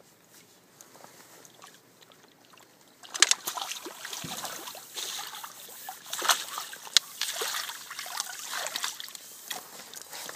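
A hooked carp splashing and thrashing in the shallows as it is drawn into a landing net: quiet water at first, then from about three seconds in irregular loud splashes and sloshing.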